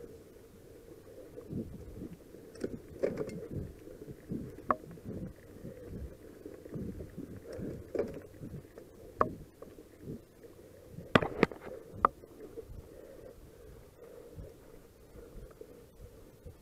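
Cross-country mountain bike rolling along a dirt forest trail: a low, uneven rumble of tyres on soil and leaves, with the bike rattling and knocking over bumps. A few sharper knocks stand out, loudest in a quick cluster a little past the middle.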